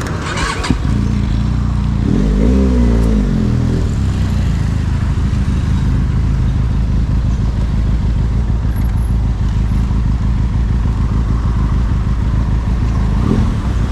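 Benelli TRK502X parallel-twin motorcycle engine running as the bike moves off, its pitch rising and falling from about two to four seconds in, then a steady drone while riding.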